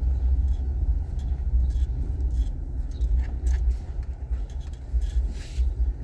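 Low, steady rumble of a vehicle on the move, with a few faint clicks and rattles over it.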